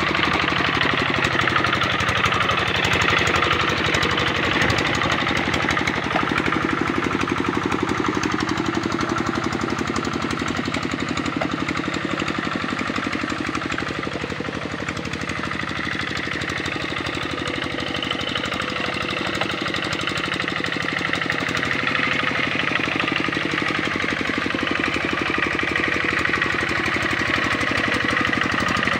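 Kubota RD65 single-cylinder diesel engine of a two-wheel hand tractor running steadily under load as it works a flooded rice paddy, a rapid, even pulsing beat. It dips a little in loudness around the middle and then comes back up.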